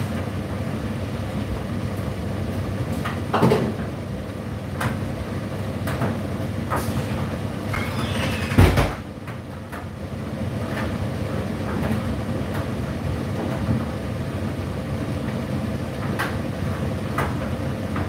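Indesit IDC8T3 condenser tumble dryer running mid-cycle: a steady motor and fan hum with the drum turning, and occasional knocks from the tumbling load, the loudest about eight and a half seconds in.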